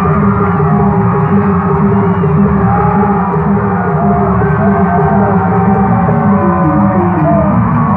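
Loud live music: sustained ringing tones stepping through a short repeating melody, with wavering voices from the crowd above it.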